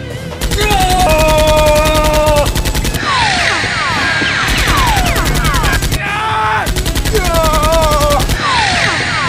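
Rapid automatic gunfire sound effect in three bursts of a second or two each, with falling whistling sweeps in the gaps between them. A held voice-like tone sounds over the bursts.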